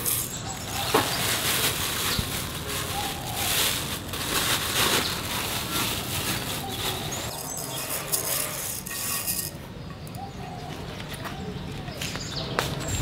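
Plastic bag crinkling and rice grains rattling as rice is scooped with a small bowl and poured into an aluminium pot, busiest in the first few seconds, then quieter handling.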